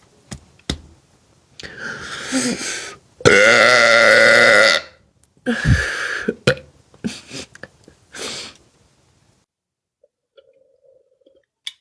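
A woman belching deliberately: one long, loud belch of about a second and a half a few seconds in, with shorter belches and sounds before and after it.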